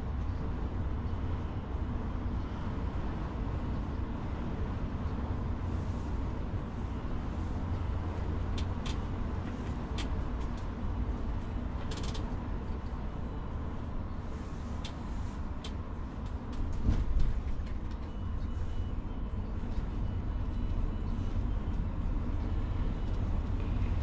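Inside a coach travelling at motorway speed: a steady low engine and road rumble, with a few light clicks and rattles and a brief louder bump about 17 seconds in.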